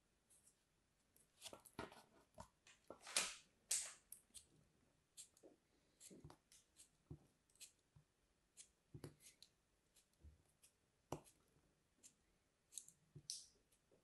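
Snap-off utility knife blade cutting and scraping through packed kinetic sand: a string of soft, irregular gritty crunches and scratchy clicks, busiest a couple of seconds in and again near the end.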